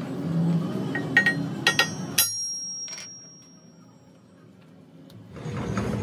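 Several sharp metallic clinks of metal striking metal over a low rumble. The last clink rings on in a high tone for a couple of seconds. The sound then falls away almost to quiet before the rumble comes back near the end.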